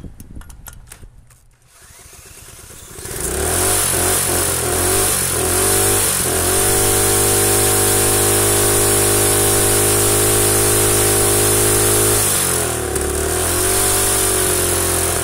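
Single-cylinder Predator small engine on a pressure washer, running with no head gasket, is spun over with a few clicks and catches about three seconds in. It hunts up and down for a few seconds, settles into a steady fast run, dips briefly near the end and picks back up.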